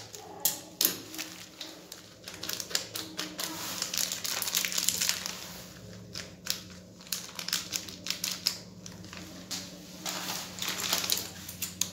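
Thin plastic packet crinkling and rustling in the hand as tutti frutti (candied fruit pieces) is shaken out of it, with irregular small clicks and crackles.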